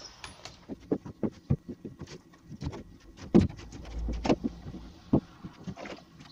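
Irregular knocks and thumps of someone moving about and handling tools inside a plywood cabinet carcass, with a few sharper knocks about halfway through and a brief low thud as he kneels.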